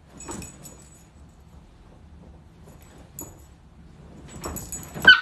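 Soft rustling and a few light metallic jingles as a small dog in a collar moves about on a couch. A short, louder sound comes just before the end.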